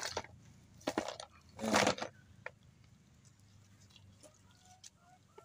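Snails and crabs tipped out of a net trap into an aluminium basin: a few knocks, then a short clattering rattle of shells on the metal about two seconds in. Faint bird chirps follow near the end.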